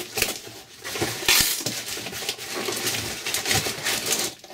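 Cardboard box being torn open by hand: packing tape and cardboard ripping and crackling in irregular bursts, the loudest about a second and a half in.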